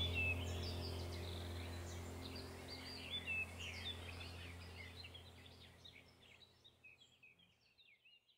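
Many small birds chirping over a low, steady hum, the whole sound fading out gradually until it is gone at the end.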